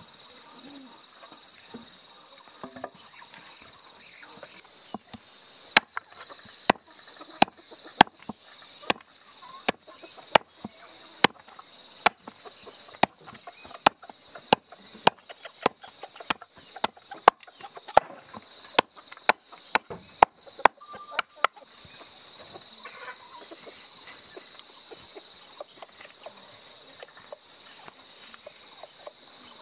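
Repeated sharp chopping or hammering strikes of a hand tool, about one and a half a second, starting about six seconds in and stopping about fifteen seconds later, over a steady high-pitched hum.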